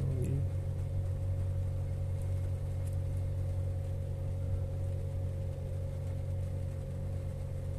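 Hyundai petrol engine idling steadily, heard from inside the car's cabin as a low, even hum.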